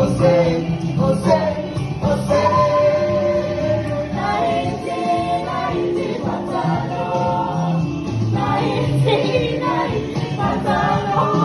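Background music: a song with sung vocals and a choir-like, gospel sound over a steady accompaniment.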